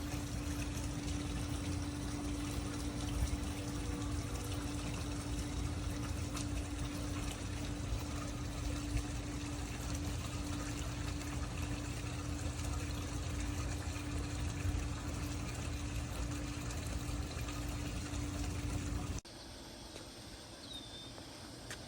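Pool water running and splashing with a steady hum, as from a pool pump and suction cleaner working, which cuts off abruptly near the end. A single short high chirp follows in the quieter remainder.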